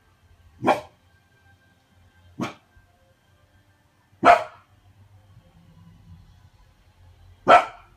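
Golden retriever puppy barking at its own reflection in a mirror: four short, sharp single barks, spaced a second or more apart.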